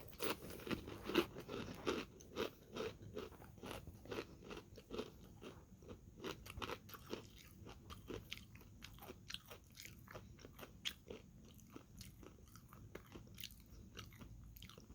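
A mouthful of barbecue potato chips, kettle-cooked and regular together, being crunched and chewed: a rapid run of crisp crunches, loudest in the first few seconds and growing softer as the mouthful is chewed down.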